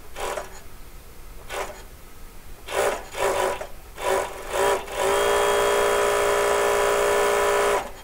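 Zoje C5000 industrial coverseam sewing machine run in several short bursts on the treadle, then run steadily at one even pitch for nearly three seconds before stopping. It runs with no fabric under the presser foot, chaining thread off the back.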